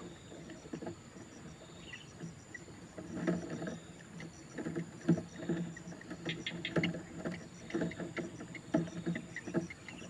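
Heron chicks begging in the nest as they are fed: quick runs of ticking, clicking calls that start about three seconds in and come in bursts.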